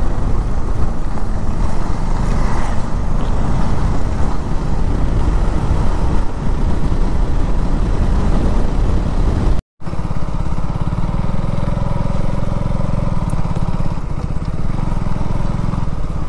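Motorcycle running steadily while being ridden on a road, a dense low rumble of engine and road noise. The sound drops out for a moment about two-thirds through, then resumes.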